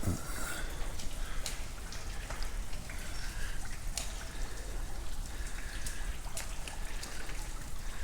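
Water dripping at irregular intervals, a scatter of sharp drips over a steady wet hiss.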